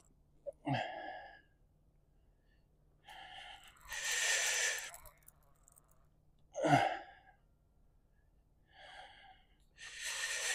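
A man breathing hard in a few separate heavy breaths a couple of seconds apart, with one short grunt near the middle, from the effort of playing a hooked fish on a rod.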